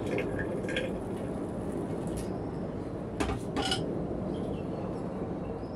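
Water poured from a stainless steel kettle into a stainless steel sink drain. About three seconds in come two sharp metallic clanks half a second apart as the kettle is set down in the steel sink basin. A steady background hum runs underneath.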